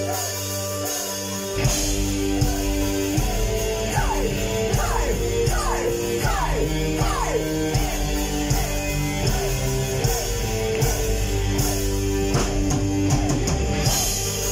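Live metal band playing an instrumental passage: held notes, then drums, electric guitars and bass come in together about a second and a half in. An electric violin plays the lead over them, with a run of quick falling slides a few seconds in.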